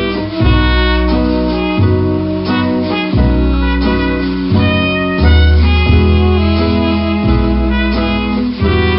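Instrumental background music: sustained melody notes over a bass line that changes note about every second.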